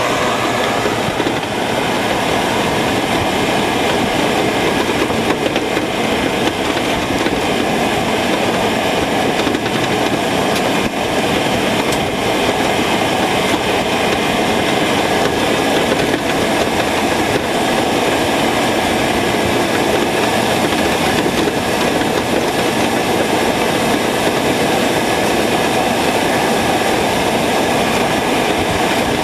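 Steady running noise of a moving truck, engine and road rumble mixed with wind rush, unbroken throughout.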